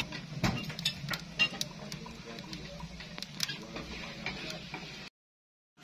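A spatula scraping and clicking against a clay pan as food is stirred, in many short irregular knocks over a low steady hum; the sound cuts off to silence near the end.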